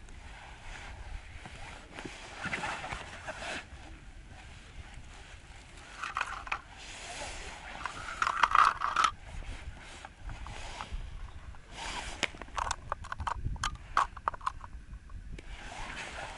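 Close handling noises: rustling and scraping in bursts, then a quick run of sharp clicks near the end, as a short winter ice-fishing rod and its gear are handled.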